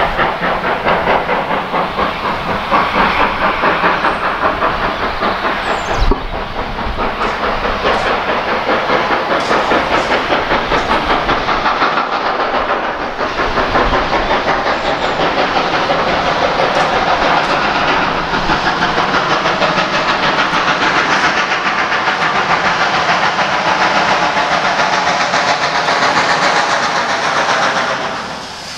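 Steam locomotive approaching under power, its exhaust beating in a fast, steady rhythm over a constant hiss of steam.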